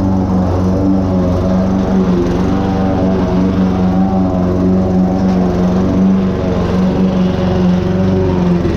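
Toro Recycler self-propelled lawn mower's petrol engine running steadily under load as it cuts through overgrown grass and broad-leaved weeds.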